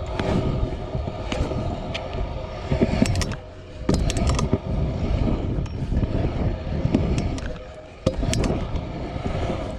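BMX bike riding on concrete skatepark ramps: a continuous rumble and rattle of tyres and frame on concrete, with sharp knocks and clicks. The rolling noise drops briefly twice, about three and a half and eight seconds in, and each time comes back with a hard knock.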